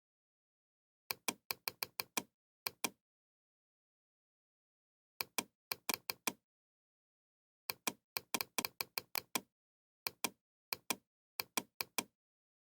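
Computer keyboard typing with mouse clicks: sharp plastic clicks in four quick runs of keystrokes, separated by short pauses.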